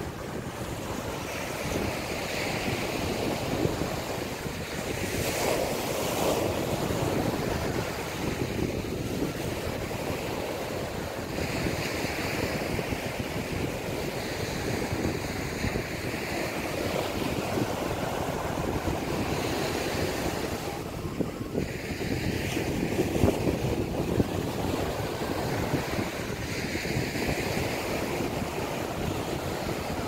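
Small sea waves breaking and washing up a beach, surging every few seconds, with wind buffeting the microphone.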